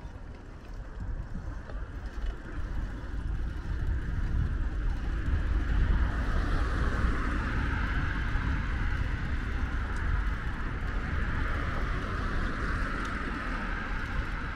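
Car traffic passing on the road alongside: a steady rushing noise that grows louder a few seconds in, over a low rumble.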